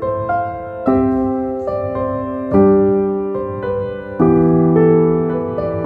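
Background piano music, with chords changing every second or so.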